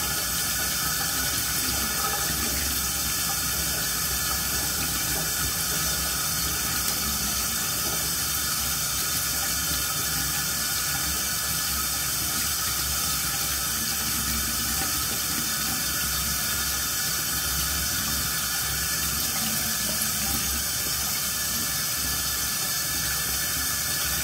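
Bathroom sink tap left running: a steady stream of water into the basin.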